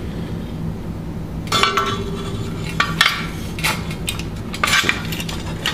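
Steel clinking and rattling as a homemade plate-steel bending jig with loose bolts and washers is handled and opened: several sharp metal clinks from about a second and a half in, over a steady low hum.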